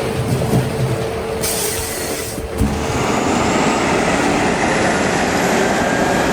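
Heavy logging machinery running with a loud, steady mechanical noise. It gets louder about two and a half seconds in, and a faint thin whine then rises slowly in pitch.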